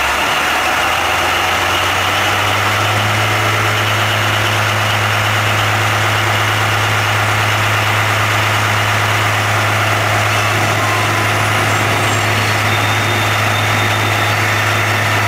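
Diesel railcar engine running with a steady low drone, heard from inside the cab while the train rolls slowly along the track. The note rises a little over the first couple of seconds, then holds steady.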